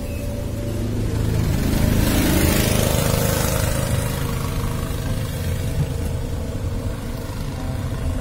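Engine and road noise of a moving vehicle heard from inside it: a steady low rumble, with a rush of noise that swells about two to three seconds in and then eases off.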